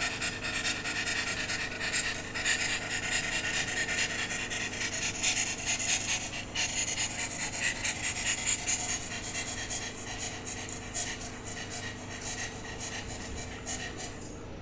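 A dog panting quickly and steadily, softening about two-thirds of the way through.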